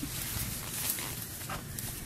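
Bare feet stepping through long grass, with a few brief rustles of the blades over a steady outdoor hiss.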